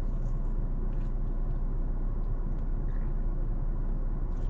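Steady low rumble of a car idling, heard inside the cabin, with a few faint clicks of chewing.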